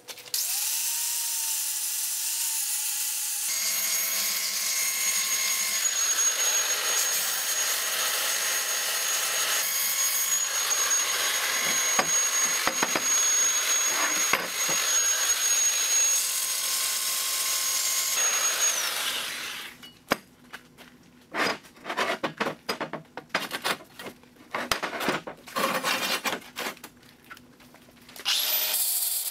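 Angle grinder spinning up and sanding down the weld on a steel tube axle: a steady grinding noise with a thin high whine. About twenty seconds in it winds down, followed by a run of short, uneven bursts, and steady sanding starts again near the end.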